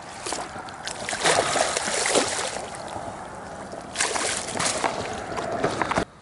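A hooked fish splashing and thrashing at the water's surface, then a second burst of splashing about four seconds in as it is scooped into a landing net; the sound stops abruptly near the end.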